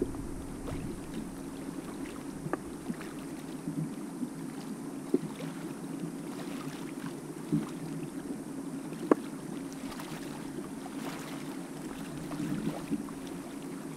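Muffled underwater sound from a camera submerged in a fish trap: a steady low hum with a few short clicks and knocks, the sharpest about nine seconds in.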